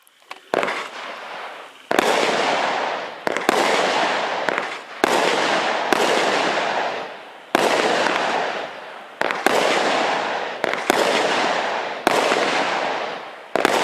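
Cube Fireworks 'Slammer' firework firing shot after shot, about ten in all, roughly one every second or so. Each shot gives a sharp bang that trails off into a long, dense noisy tail.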